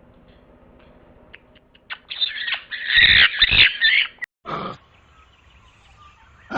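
An animal's harsh, noisy screeching calls: a loud run of about two seconds starting about two seconds in, cut off abruptly, then one short call.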